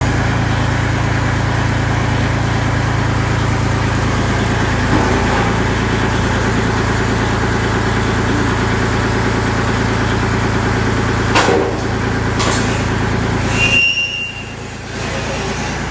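An engine idling steadily with a low, even hum, with two short knocks about three quarters of the way through, after which the engine gets quieter.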